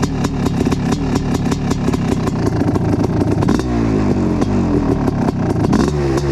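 1988 Kawasaki KX500's single-cylinder two-stroke engine, fitted with an FMF Fatty pipe and DEP silencer, warming up after a cold start. It idles with an uneven popping for about three seconds, then the throttle is blipped in several quick short revs.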